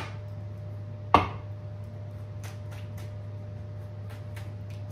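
A deck of tarot cards knocked once, sharply, against a tabletop about a second in, then split and shuffled by hand with a few faint card clicks.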